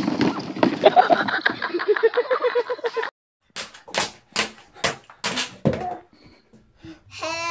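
A child's voice over rustling. Then a run of about six sharp taps, a little under half a second apart, from a small girl's hard-soled shoes stamping on a tiled floor in a small room, followed by a few fainter knocks.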